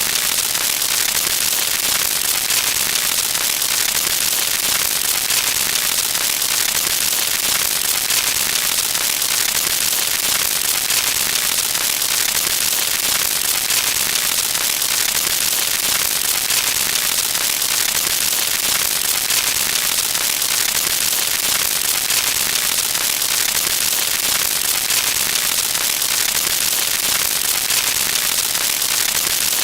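Continuous dense crackling static, bright and hissy, at a steady level with no pauses or changes.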